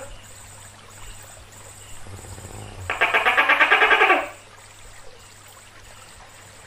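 Tokay gecko giving its rapid rattling trill once, about three seconds in: a fast pulsing call a little over a second long that swells in loudness.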